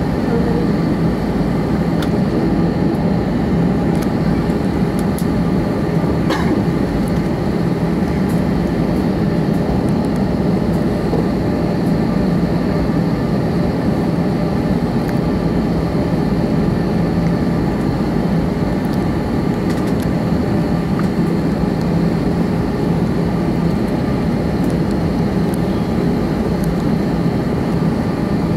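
Steady cabin drone inside an Airbus A321 on the ground, its engines running at low taxi power, a constant low hum that doesn't change.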